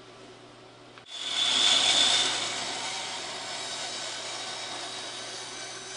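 Bandsaw cutting into a small wooden block. About a second in, the cutting noise jumps up sharply, then settles into a steady cut.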